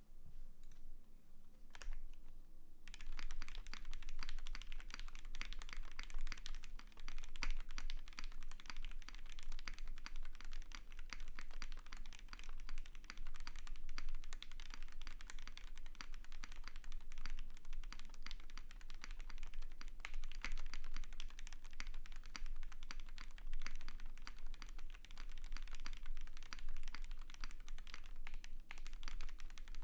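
Fast, continuous typing on a KBD8X mk2 custom mechanical keyboard. It has lubed Gateron PRO Yellow linear switches on a polycarbonate plate, with PBT keycaps. A few separate keystrokes come first, then steady rapid typing begins about three seconds in.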